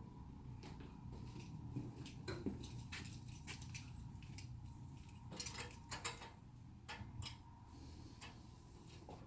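Scattered light clicks and metallic clinks of small metal parts or tools being handled, over a low steady hum.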